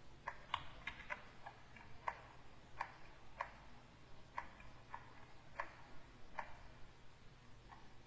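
Pen stylus tapping and clicking on a Wacom graphics tablet during painting strokes: short, light clicks at irregular spacing, about two a second.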